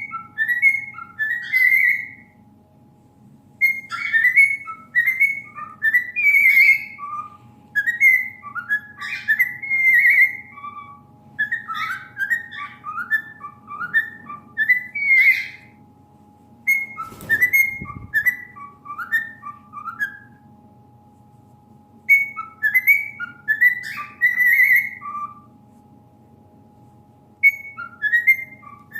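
Pet bird whistling phrases of short, chirpy, rising and falling notes in bursts of a few seconds with pauses between, over a faint steady hum. A single knock comes about halfway through.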